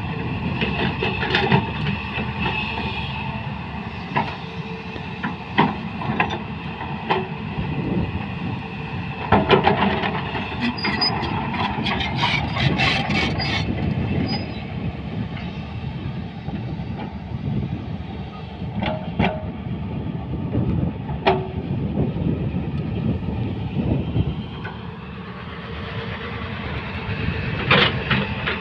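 Hyundai crawler excavator running steadily while working soil, with repeated sharp clanks over the continuous engine noise, a dense run of them about a third of the way in.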